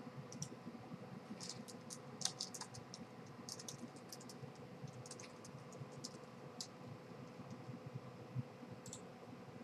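Faint computer keyboard and mouse clicks, coming in scattered clusters of quick taps over a low steady hum.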